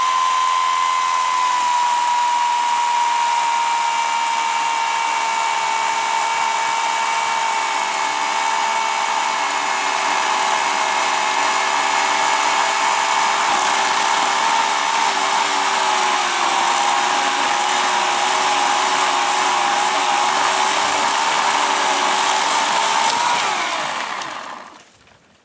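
Electric chainsaw running steadily through a relieving cut in a pecan limb, with a steady high whine that sags a little in pitch as the chain takes the load. It cuts off near the end. The saw's chain had gone pretty dull.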